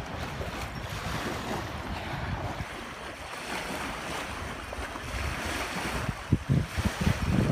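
Small lake waves lapping and breaking on a sandy shore, with wind buffeting the microphone in gusts that grow stronger near the end.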